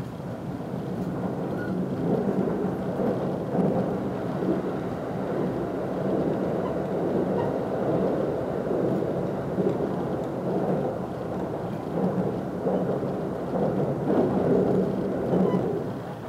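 Joban Line commuter train running at speed, a steady rumble of wheels on rails heard from inside the carriage. It swells through the middle as another train passes close alongside on the next track, then eases near the end.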